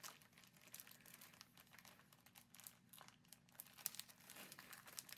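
Crinkly cross-stitch kit packaging being handled and worked open by hand: faint, irregular crackling.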